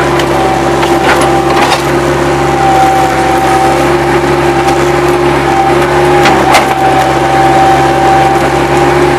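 Bobcat 763 skid-steer loader's diesel engine running steadily under work, with a steady whine and a few sharp knocks or clanks, one near the start, one just under two seconds in and one past the middle.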